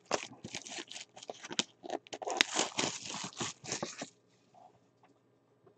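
Plastic shrink wrap being torn off a trading card box and crumpled, with irregular crackling for about four seconds before it stops.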